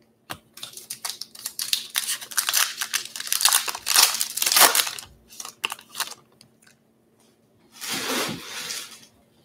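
Foil wrapper of a baseball card pack being torn open and crinkled by hand: a crackling tear that is loudest about four seconds in and stops about six seconds in. A short rustle follows near the end.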